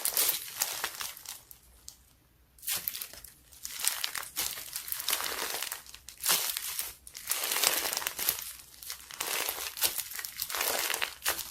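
Slime being squished and pressed close to the microphone, a dense crackling and crinkling in repeated waves, with a short pause about two seconds in.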